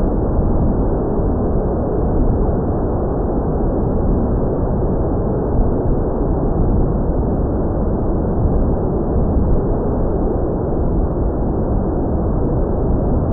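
Wind buffeting the microphone: a loud, steady rumbling rush of noise with no clear motor tone in it.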